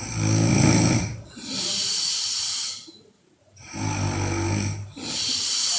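A woman snoring loudly in deep sleep: twice a low rattling snore, each followed by a long airy breath, in a slow repeating rhythm.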